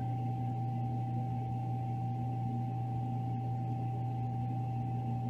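Egg incubator's fan running: a steady low hum with a constant thin whine above it.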